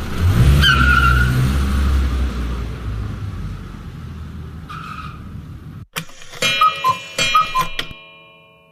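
Cartoon sound effect of a car driving off: an engine rumble with a brief tire squeal, fading away over a few seconds. About six seconds in comes a short chiming musical sting that rings out near the end.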